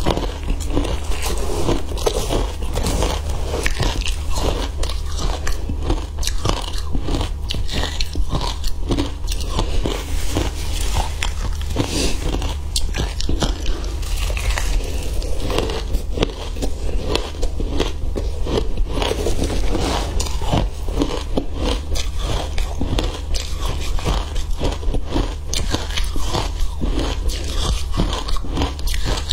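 Close-up crunching and chewing of crushed ice coated in matcha powder, a dense run of crisp, irregular crackling bites, over a steady low hum.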